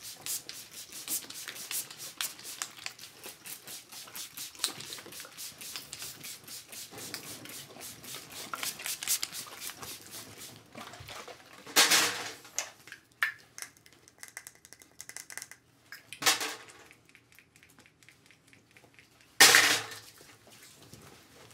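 Close-miked ASMR handling of makeup tools: a quick, dense run of small taps and clicks for about ten seconds, then three short, loud hissing bursts a few seconds apart.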